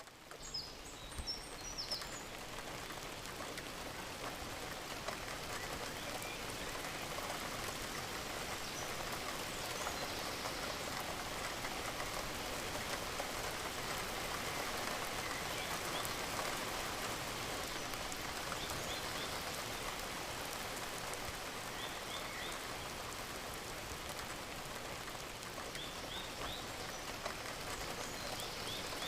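Gentle, steady rain falling, fading in over the first second or two. A few faint short bird chirps come through now and then.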